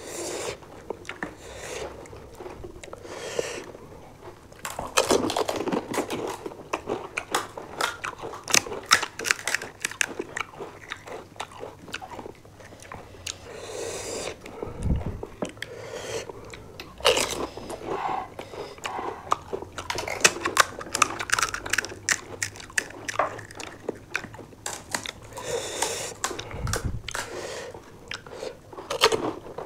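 Crisp panipuri shells crunching as two people bite into them and chew, a dense run of sharp crackles in several clusters with wetter chewing between. Two dull low thuds come about halfway through and again near the end.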